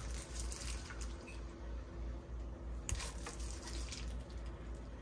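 Raw beef stew chunks dropped by a gloved hand into a slow cooker's crock: soft wet plops and squelches, with one sharper click about three seconds in, over a low steady hum.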